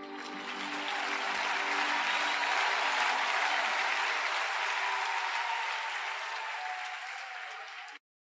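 Congregation applauding steadily, with soft music faintly underneath, cutting off suddenly near the end.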